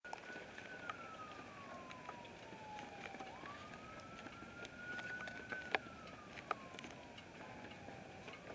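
A siren wailing, its pitch sliding slowly down, then sweeping quickly back up and climbing again, about every five seconds. A few sharp clicks are heard over it, two louder ones a little past the middle.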